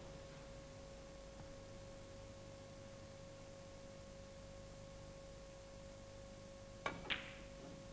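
Hushed snooker arena with a faint steady hum, then near the end two sharp clicks a quarter-second apart: the cue tip striking the cue ball, then the cue ball hitting the black.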